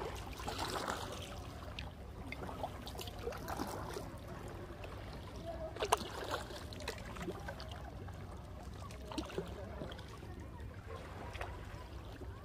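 Kayak paddles dipping into the water, with water splashing and trickling off the blades, and a sharp knock about six seconds in.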